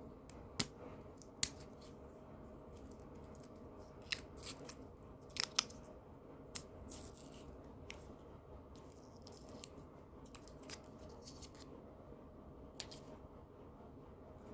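Candy packaging being handled and opened by hand: scattered sharp clicks and crinkles, busiest in the middle, over faint room tone.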